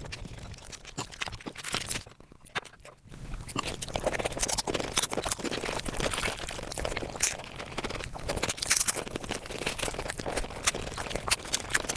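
Mukbang eating sounds played back at five times speed: a fast, dense jumble of chewing, smacking and crunching clicks, with a short quieter gap about two seconds in.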